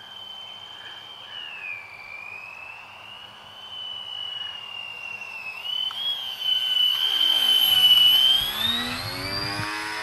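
Radio-controlled scale model plane's motor and propeller giving a high, slightly wavering whine in flight. Near the end the model makes a close low pass: the sound grows louder, then drops in pitch as the plane goes by.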